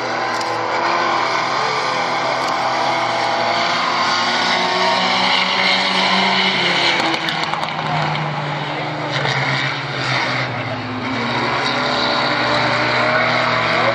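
Race car engines of a sedan and a pickup truck running hard around a dirt oval, their engine pitch rising and falling several times through the turns.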